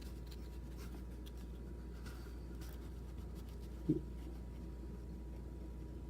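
Paper leaflets being handled, with faint rustling and light ticks, and one short dull thump about four seconds in, over a steady low hum.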